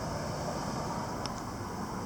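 Light rain with a breeze: a steady rushing noise, with a brief high chirp a little past a second in.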